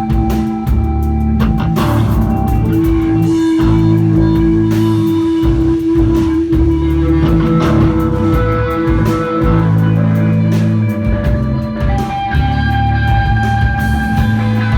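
Live instrumental rock from a three-piece of electric guitar, bass guitar and drums, the guitar holding long, droning notes over a steady bass line and drum beat.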